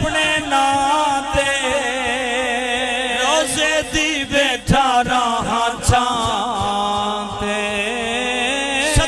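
A man singing a long, drawn-out devotional chant through a microphone and loudspeakers, his voice held and wavering on each line. There are a few short sharp knocks.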